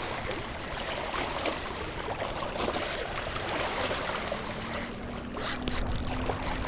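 Wind buffeting the microphone with a low rumble, over small waves lapping at the lake shore.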